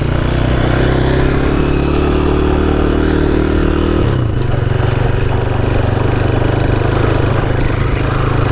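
Honda C90's small single-cylinder four-stroke engine running steadily after a bump start; about four seconds in the engine note drops and stays lower.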